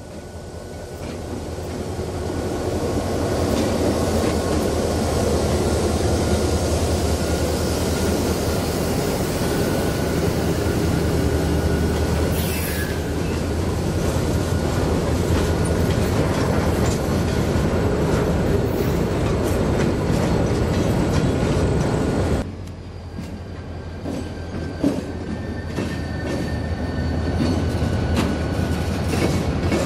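Freight train led by an EMD GP16 diesel locomotive passing: a deep engine rumble with the rolling noise of the cars on the rails, building over the first few seconds. About two-thirds of the way through it drops suddenly to a quieter stretch of wheels clicking over rail joints, with faint high wheel squeal.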